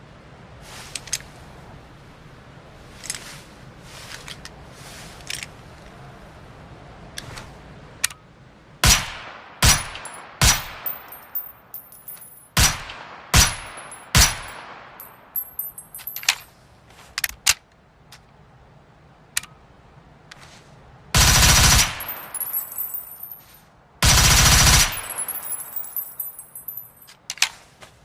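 Škorpion submachine gun firing: lighter clicks at first, then a string of single shots, then two full-auto bursts of about a second each near the end, followed by high metallic tinkling.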